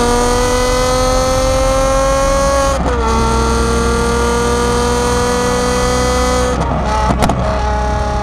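Lamborghini Aventador SVJ's naturally aspirated V12 through a Gintani F1-style exhaust, accelerating with a high-pitched wail. The pitch climbs through a gear, drops at an upshift nearly three seconds in and climbs again, then breaks with a few sharp cracks at the next gear change near the end.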